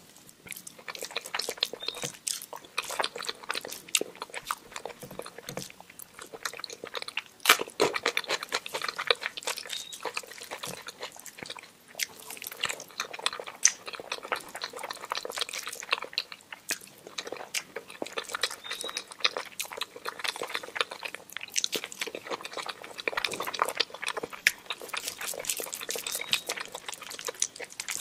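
Close-miked eating by hand: chewing and wet mouth clicks on soft rice with dal and mashed potato, with fingers mixing food on the plate, a dense run of small clicks and smacks with one louder click about a third of the way in.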